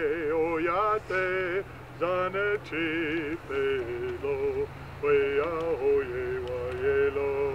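Background music: a voice singing high held notes with a strong wavering vibrato, over a low steady hum.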